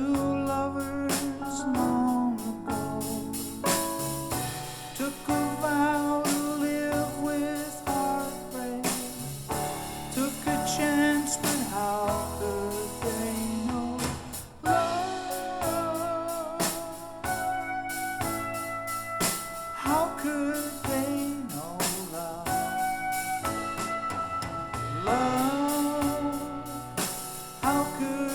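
A recorded song with a singing voice and instruments, played back through MarkAudio Sota Cesti MB hi-fi loudspeakers and picked up by a microphone in the room.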